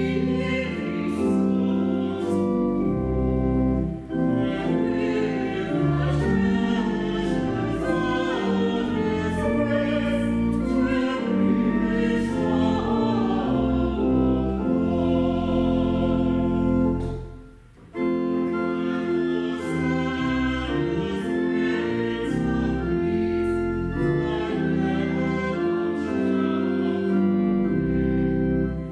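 A small group of mixed voices singing a hymn with pipe organ accompaniment. The music breaks off briefly about two-thirds of the way through, between one verse and the next, then resumes.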